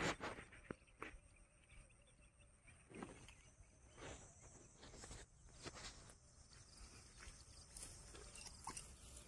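Mostly quiet, with a few faint, scattered rustles and light clicks as a mesh landing net and the snakehead fish in it are handled.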